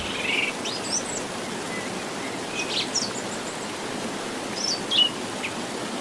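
Steady rush of running water, with birds calling over it: short chirps and whistles that rise and fall, in three brief bouts, at about one, three and five seconds in.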